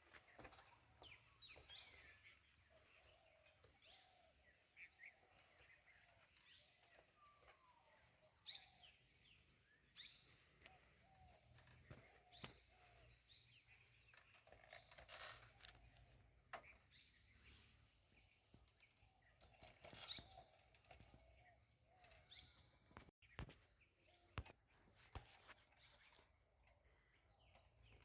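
Faint outdoor ambience with scattered bird chirps and short calls throughout, and a few brief soft clicks.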